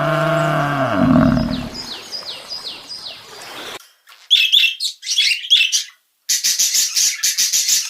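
A long pitched animal call fades out in the first two seconds, then birds chirp in quick high notes that drop in pitch, ending in a fast, high, pulsing trill.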